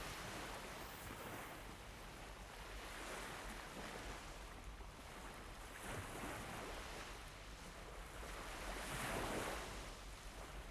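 Faint sea surf and wind: a steady wash of noise that swells gently, stronger about nine seconds in.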